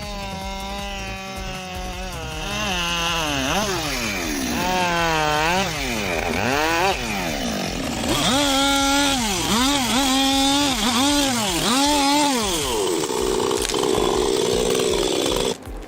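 Chainsaw running and cutting wood, its engine pitch rising and falling over and over as it revs into and out of the cuts. It stops abruptly near the end.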